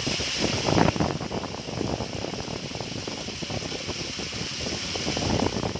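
Pumped water jetting from a pipe outlet and splashing into a nearly full metal rooftop water tank: a continuous rushing splash with a brief louder surge about a second in.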